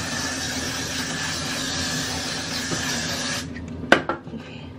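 Aerosol hairspray can spraying in one long continuous hiss that stops abruptly about three and a half seconds in, followed shortly by a single sharp click.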